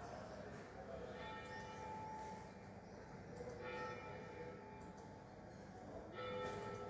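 A single swinging church bell, the seventh bell (note A) of a twelve-bell ring cast by the E. Picasso foundry in 1964, ringing a 'distesa': three strokes about two and a half seconds apart, each left ringing into the next.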